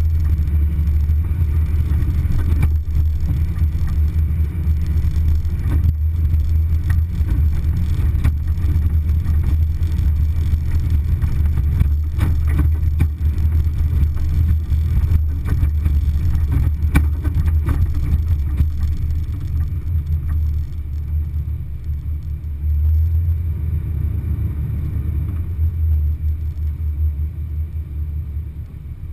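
Low, steady rumble of an off-road vehicle driving along a rutted dirt trail, with scattered knocks and rattles from bumps, mostly in the middle; it gets somewhat quieter in the last several seconds.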